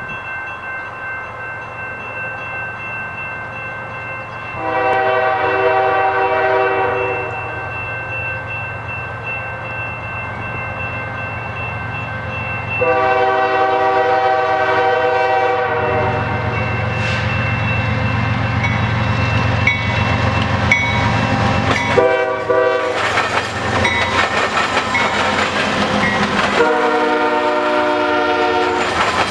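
Freight locomotive air horn sounding the grade-crossing pattern: two long blasts, a short one and a final long one, over the building rumble of approaching diesel-electric locomotives. In the last few seconds the lead units pass close, their wheels clattering over the diamond crossing.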